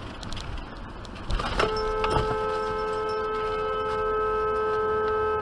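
Car horn held down for about four seconds, a steady unbroken blare that starts about a second and a half in, over road and engine noise inside the car. It is a protest honk at a car that has cut in close.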